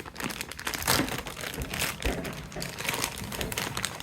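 Crinkling of a plastic candy bag as it is handled, a dense run of irregular crackles.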